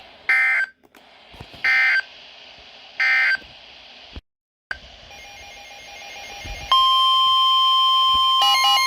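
Three short bursts of EAS digital data screech, the end-of-message signal closing the previous alert, followed by a moment of dead silence. About seven seconds in, the steady 1050 Hz NOAA Weather Radio warning alarm tone starts for the next alert, and near the end a second pulsing electronic tone joins it.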